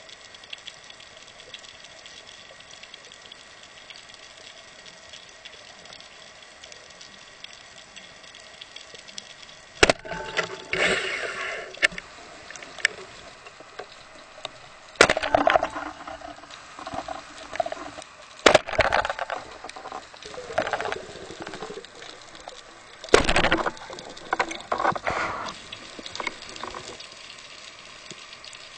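Underwater sound picked up by a camera on a speargun: a steady hiss, then, from about ten seconds in, scattered sharp knocks and short noisy rushing bursts, the loudest knock about twenty-three seconds in.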